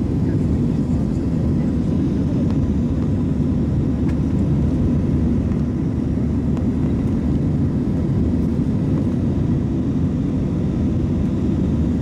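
Jet airliner cabin noise in flight: the steady, mostly low-pitched noise of the engines and the airflow, heard from a window seat, with a faint steady tone above it.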